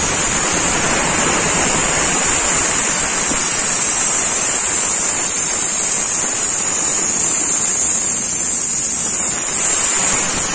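Belt-driven electric air compressor making a steady, loud rushing noise with no breaks.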